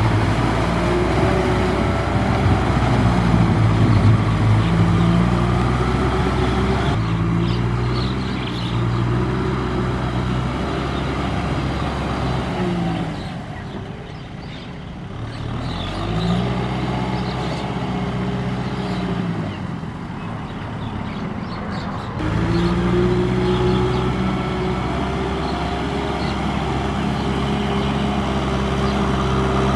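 Tractor diesel engine running hard, its pitch rising and falling as it is revved up and eased off repeatedly. The sound changes abruptly a few times, about a quarter, a half and three quarters of the way through, between stretches of heavier and lighter engine sound.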